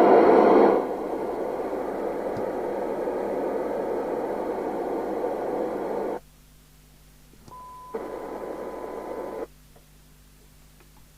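Midland 4001 FM CB radio's speaker hissing with the squelch open, cutting off sharply about six seconds in as the squelch closes. Then a steady 1 kHz test tone comes through, with a second burst of hiss for about a second and a half that cuts off just as sharply, as the squelch threshold is being set.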